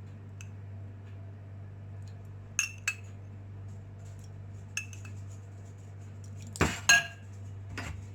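Kitchen utensils and dishware clinking as salad dressing ingredients are added: a few light, ringing clinks, then two louder ones close together near the end. A steady low hum runs underneath.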